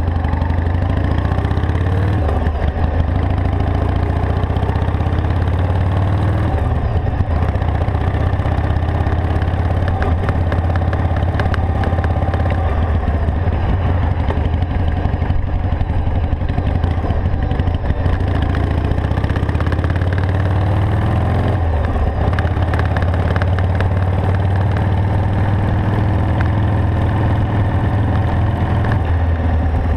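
Harley-Davidson Sportster XL883's air-cooled V-twin engine running under way, steady and loud. Its pitch falls and climbs again several times with the throttle.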